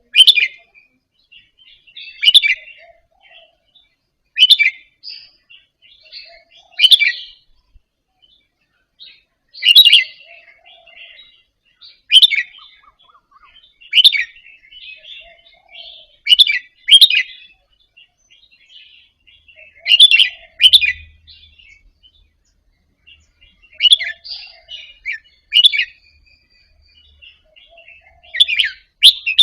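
Red-whiskered bulbul singing short, bright song phrases, one about every two to three seconds, some given as quick doubled notes.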